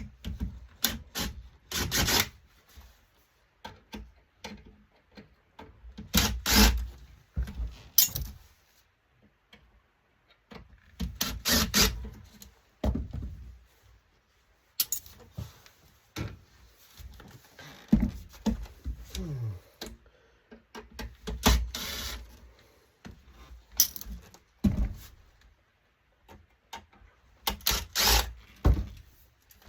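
Irregular clatter of metal monitor parts and hand tools being handled during disassembly: short clusters of knocks, rattles and scrapes with quiet gaps between them.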